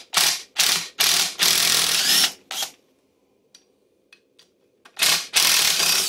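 Cordless impact driver with a 5 mm Allen bit hammering out small bolts in a Polaris RZR transmission case, bolts typically held with Loctite. Several short bursts and one long one in the first half, a pause of about two seconds with a few light clicks, then two more bursts near the end.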